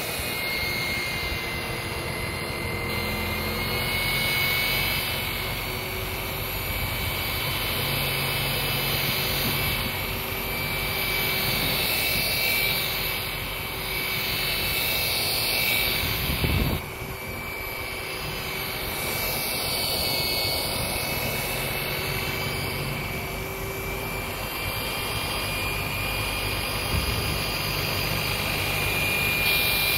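DeWalt DWP849X rotary buffer running with a wool pad, cutting oxidized boat gelcoat with heavy-cut rubbing compound: a steady high motor whine over the hiss of the pad on the hull. About halfway through there is a brief bump, then a short dip in level.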